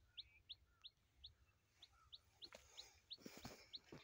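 A small bird repeating a short, high chirp about three times a second, faint. A few faint knocks and rustles come in near the end.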